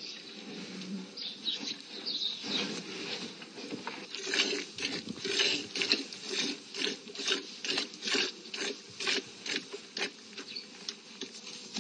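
A cow being milked by hand: squirts of milk hitting a plastic bucket, irregular at first, then settling into an even rhythm of about two to three squirts a second from about four seconds in.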